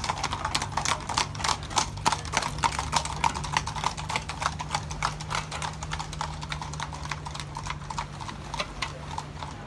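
Hooves of several horses walking on a paved street, a dense, uneven clip-clop that grows fainter near the end.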